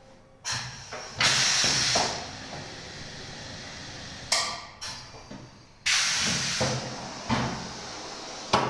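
Pneumatic screen-printing machine cycling: two loud hisses of compressed air venting from its cylinders, with sharp metal clunks as the frame and carriage move and hit their stops.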